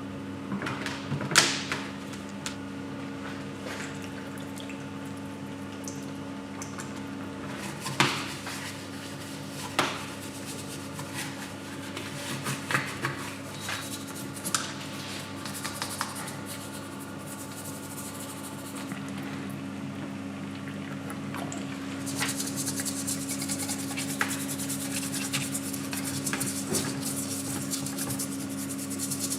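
Workshop handling of metal parts: scattered sharp clinks and knocks over a steady hum. About two-thirds of the way through, a steady rubbing or scrubbing hiss starts.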